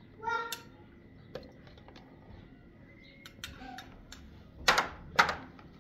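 Metal spoon tapping and clinking against small ceramic bowls while spooning out preserve: scattered light taps, then two louder clinks half a second apart near the end. A brief pitched sound comes about a third of a second in.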